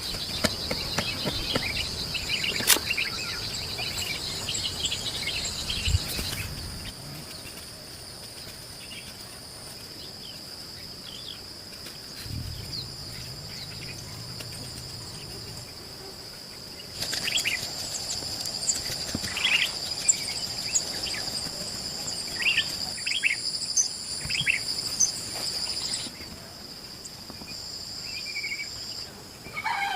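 Insects shrilling in a steady high drone, with birds chirping now and then and a few sharp knocks. The drone cuts out abruptly a few times and comes back.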